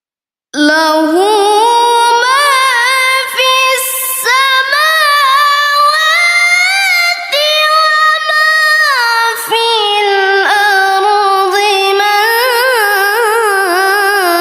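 Quran recitation in the melodic tilawah style by a single high-voiced reciter, unaccompanied: long held notes full of quick pitch turns and ornaments, starting about half a second in after silence.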